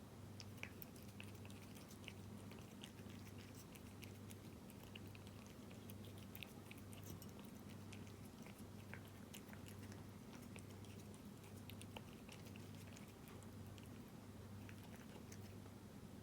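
A cat chewing wet tuna-in-jelly cat food: many quick, faint, wet clicks and smacks of its jaws.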